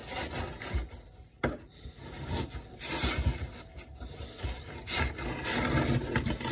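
Fillet knife scraping in uneven rasping strokes between a walleye fillet and its skin against the table as the skin is cut away, with a sharp knock about a second and a half in.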